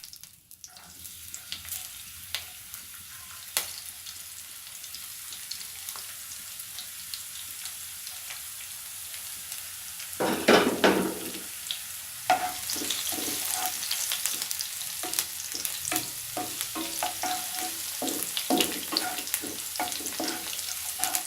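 Green chillies and chopped garlic sizzling in hot cooking oil in a kadhai. A loud scrape comes about ten seconds in, and from then on a spatula stirs and scrapes against the pan while the sizzle grows busier.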